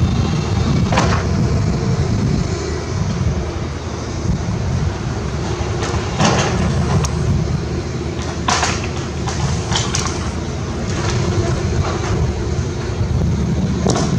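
Volvo tracked excavator's diesel engine running steadily as its bucket tears into a wooden building frame. Sharp cracks and crashes of splintering timber come several times, clustered in the middle and again near the end.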